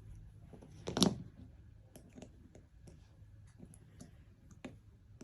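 Small clicks of a CR2032 coin-cell battery being popped out of a 2014 Vauxhall Corsa remote key's plastic case, with one sharp, louder click about a second in and lighter ticks after it.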